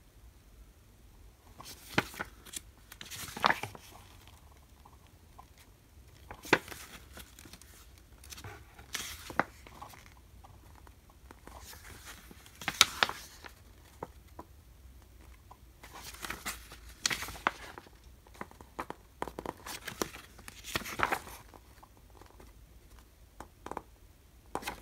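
Pages of a paper booklet being turned by hand, each turn a short papery rustle, coming at irregular intervals with quiet between.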